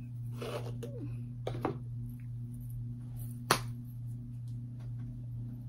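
Room tone with a steady low electrical hum, a few faint rustles and one sharp click about three and a half seconds in.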